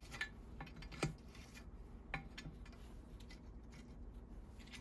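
Light metallic clicks and rubbing from tools and metal parts being worked on a Landis leather splitter as its fastenings are loosened, with a few sharper clicks, the clearest about a second in and around two seconds in.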